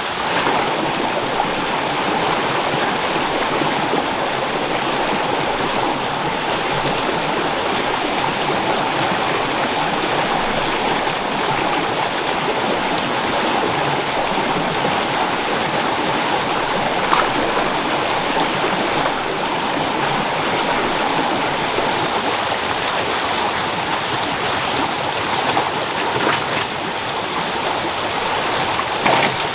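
Fast rainforest stream rushing over rocks in a steady, loud wash of water noise, with a single sharp knock about halfway through.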